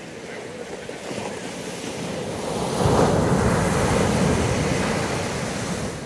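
Ocean wave breaking and washing up a sandy beach against boulders. The rush of surf builds, crashes just before three seconds in, then eases as the foam spreads.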